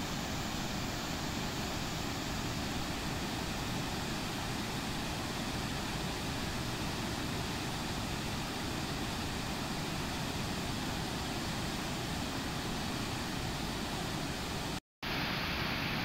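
River Clyde waterfall and rapids in spate after heavy rain: a steady, full rush of falling and churning water. It cuts out abruptly for a moment near the end and starts again at once, where one clip gives way to the next.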